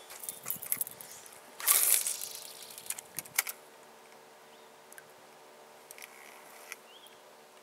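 Clicking and knocking from handling a fishing rod and reel, with one louder, short rustling burst about two seconds in and a few more sharp clicks about a second later.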